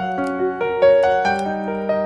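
Solo piano playing a slow, gentle melody, several notes a second over held bass notes.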